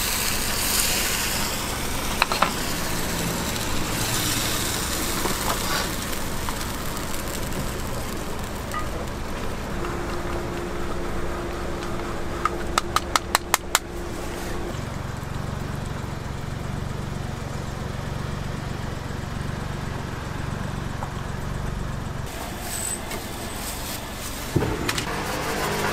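Steady low engine hum under the sizzle of a steaming pasta pan on a gas range. About halfway through comes a quick run of about eight sharp clicks, and near the end a steak starts sizzling as it is laid into hot oil.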